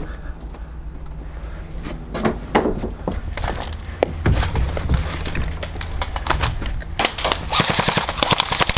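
Airsoft gun firing, with scattered single shots and knocks, then about seven seconds in a rapid full-auto burst at roughly a dozen shots a second.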